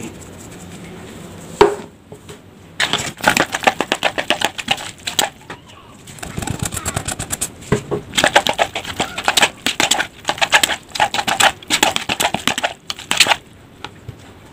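Metal spoon stirring fried cilor in a plastic tub to coat it with seasoning powder: a fast, uneven run of clicks and scrapes against the plastic, starting about three seconds in, pausing briefly midway and stopping near the end.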